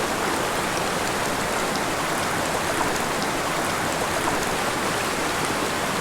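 Small mountain creek running over rocks: a steady rush and patter of water.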